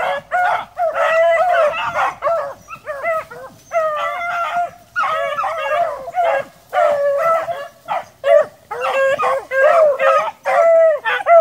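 A pack of beagles baying together, many voices overlapping in short yelps and drawn-out bawls with no let-up: hounds giving tongue as they work a scent line through brush.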